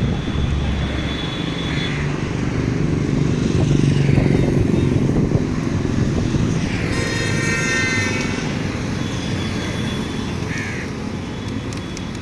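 Steady low rumble of passing motor traffic. It swells as a vehicle goes by about four seconds in, then eases off.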